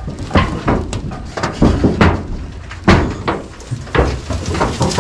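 Irregular knocks, clanks and scrapes from a rusted sheet of corrugated roofing tin being held up and shifted, mixed with rustling of dry grass as a snake is grabbed from under it.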